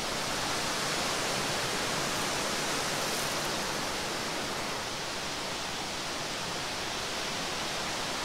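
A steady, even hiss of outdoor background noise.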